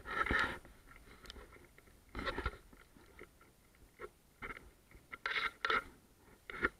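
Irregular crunching footsteps on a floor strewn with grit and debris, a handful of short crunches a second or more apart, the first the loudest.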